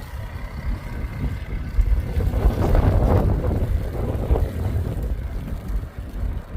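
ATV engine running with wind buffeting the microphone, growing louder for a couple of seconds in the middle.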